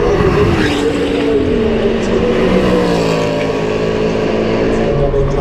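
Performance cars accelerating hard at full throttle down a straight in a rolling-start drag race. The engine note falls sharply as they pass, then steps lower several times as they pull away.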